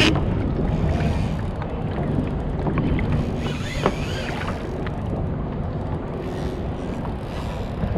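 Wind buffeting the microphone and water moving around a kayak hull in a steady noisy rush. Near the middle there is a brief rising-and-falling squeal and one sharp click.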